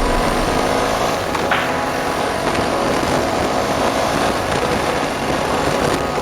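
BMW R1200GS motorcycle with its boxer-twin engine running steadily on the road: a constant mix of engine and road noise.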